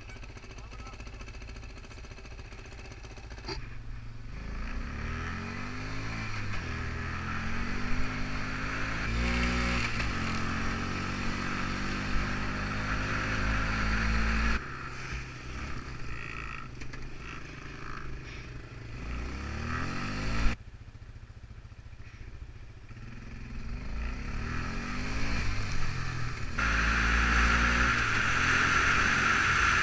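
ATV engine running while being ridden on a dirt trail, its pitch rising and falling with the throttle. The sound changes abruptly several times.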